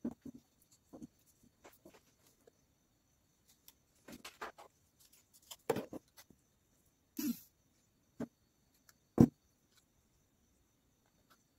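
Handling noises from a small motor and tube being worked on a table: scattered light taps, brief rubs and knocks, with one sharper knock about nine seconds in.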